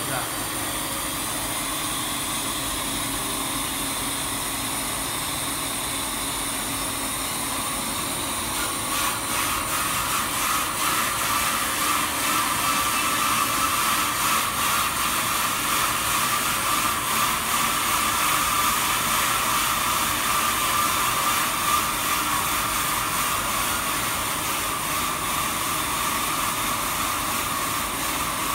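Jonsen Sander SD300-WJS+3D wet deburring machine running steadily, its planetary disc brush heads spinning over the conveyor. About nine seconds in it gets a little louder and a steady whine comes up.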